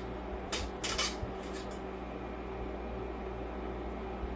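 A few short, light clinks of kitchenware being handled in the first second and a half or so, then a steady low hum.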